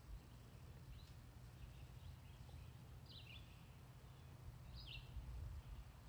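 Faint birdsong: a few short, sharp chirps, about a second, three and five seconds in, over a low, steady rumble.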